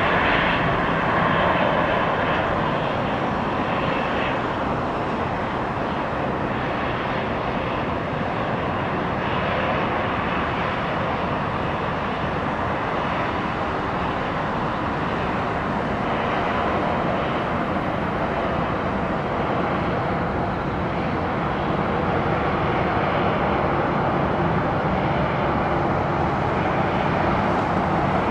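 Jet engines of a Boeing 737-700 airliner running with a steady, even noise that holds at much the same level throughout.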